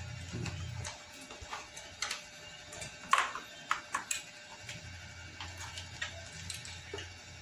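Hard plastic clicks and knocks as a motorcycle's plastic rear fender is handled and fitted, the sharpest a little after three seconds in, over faint background music.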